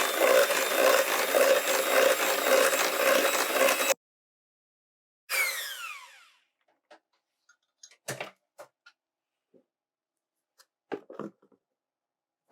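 Electric hand mixer running with its beaters in a bowl of sticky bread dough, cutting off abruptly about four seconds in. About a second later it runs again briefly, its whine falling in pitch as it winds down, followed by a few light clicks and knocks.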